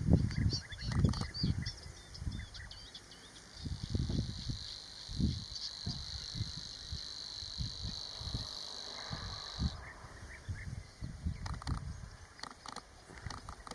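Savi's warbler (Locustella luscinioides) singing: a run of short, separate notes leads about three and a half seconds in into its steady buzzing reel, held for about six seconds and cut off suddenly. Wind buffets the microphone with low rumbles throughout.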